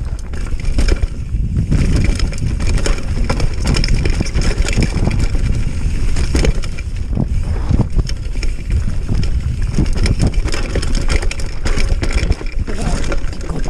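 Mountain bike riding fast down a dirt singletrack: knobbly tyres crunching over dirt and roots, and the bike clattering with constant short knocks over the bumps, with wind rushing over the microphone.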